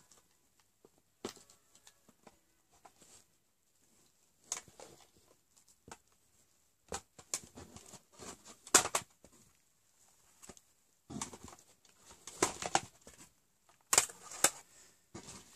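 Rustling and clattering of makeup products and their packaging being rummaged through and handled, in irregular spells, loudest about nine seconds in.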